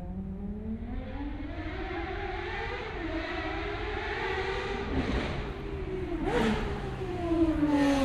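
Ferrari track car's engine accelerating, its pitch climbing steadily for about four seconds, then falling away as the car slows. Two sharp cracks come about five and six seconds in, the second with a brief upward blip in pitch.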